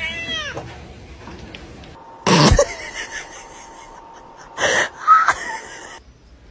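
A cat meows in the first second. Then a dog sniffs hard at a bare foot: two short, loud bursts of breath through its nose about two seconds apart, with a brief high squeak just after the second.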